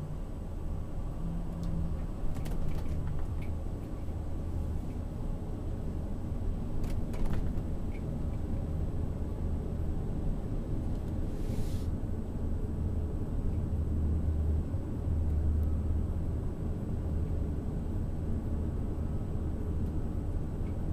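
Steady low rumble of a motorhome's engine and running gear, heard from inside the cab through a dash camera as it moves slowly aboard, with a few light clicks and knocks about two and seven seconds in.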